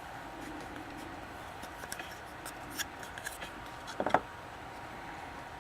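Trading cards being handled: faint rustling with a few soft clicks, the clearest about four seconds in.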